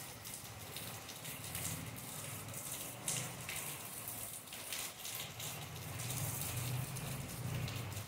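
Steady tropical rain falling on palm fronds and wet paving, full of individual drips and splashes, with one sharper splash about three seconds in.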